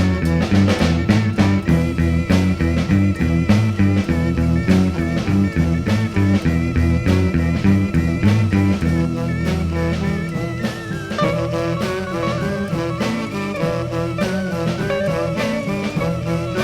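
Instrumental beat-band music: electric guitar and bass guitar with drums playing a repeating low riff. About nine seconds in the riff drops away and a higher sustained melody line takes over.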